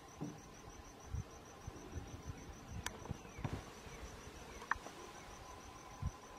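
Background insects chirping, a fast, even pulsing high note that carries on steadily, with a few soft low thumps and a couple of sharp clicks.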